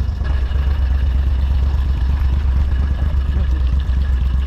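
ARGO amphibious off-road vehicle's engine running steadily with a deep, even rumble.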